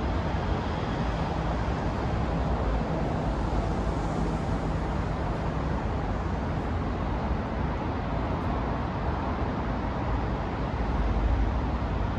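Steady outdoor urban background noise: a low, even rumble of road traffic.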